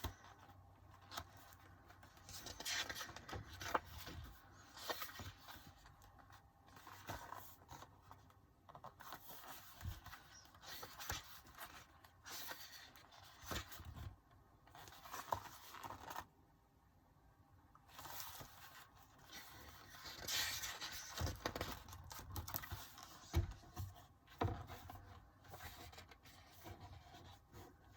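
Pages of a K-pop album photobook being turned and handled, with irregular paper rustles and scrapes and a few soft taps.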